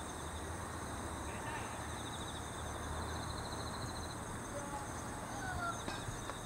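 Insects trilling steadily in a high, evenly pulsing chorus over a steady background hiss, with one light click near the end.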